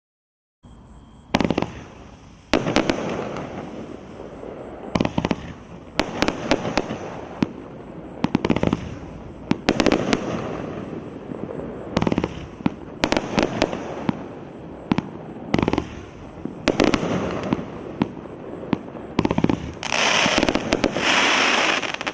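A 36-shot 500-gram fireworks cake firing: sharp launch reports come every half second to second and a half, each trailed by a crackling hiss of mine and silver-fish effects. A denser, louder crackle builds near the end as the finale.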